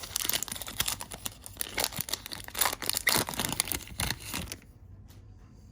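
Foil trading-card pack being torn open and crinkled by hand, a dense crackling rustle that stops about four and a half seconds in.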